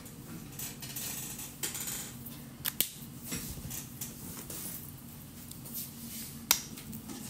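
Marker tip scratching on paper in short strokes, with scattered sharp clicks of the marker being handled: one about a third of the way in and a louder one near the end.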